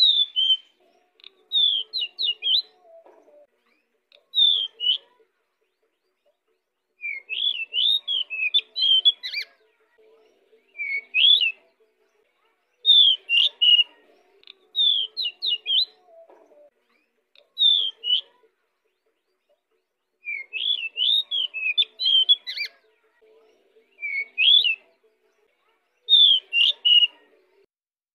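Caged decu songbird singing in full voice: about eleven short bursts of rapid, chirping whistled notes that jump up and down in pitch, with pauses of a second or two between bursts.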